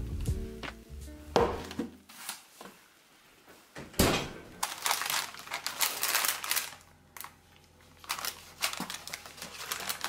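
Background music that stops about two seconds in, then a sharp knock about four seconds in and parchment paper crinkling and rustling in short bursts as a baked loaf cake is handled in it.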